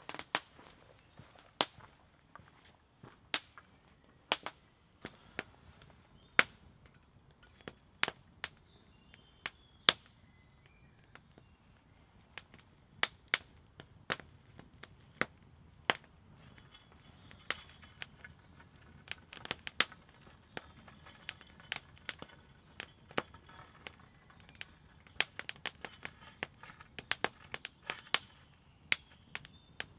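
Wood campfire crackling, with irregular sharp pops that come more often in the second half.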